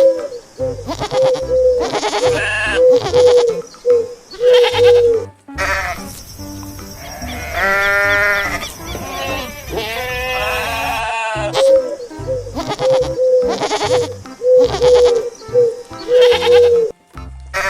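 Goats bleating again and again, short calls with one long quavering bleat about eight seconds in, over background music.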